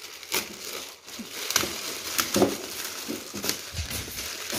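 Gift wrapping paper and a plastic wrap crinkling and rustling in irregular bursts as a present is pulled open by hand.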